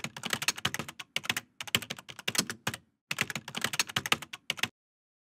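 Rapid typing on a computer keyboard: quick key clicks in three runs separated by short pauses, stopping shortly before the end.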